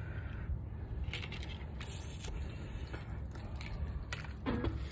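Handling noise from a hand-held phone: scattered small clicks and rustles over a low steady rumble, with a brief voice sound about four and a half seconds in.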